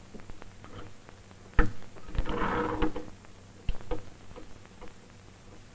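Handling noise as a tubular showcase bulb is fitted onto its stand: a sharp knock about a second and a half in, a scraping rub lasting about a second, then a few light clicks. A steady low hum runs underneath.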